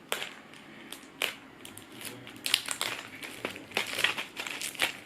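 Small packaging being opened by hand: plastic bags crinkling and small boxes rustling, with irregular clicks and crackles.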